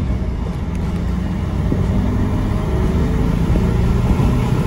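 Mitsubishi L200 pickup's turbo diesel engine pulling hard under acceleration, heard from inside the cab with road noise. The revs climb from about 2,500 to nearly 4,000 rpm and the sound gets slightly louder as speed builds.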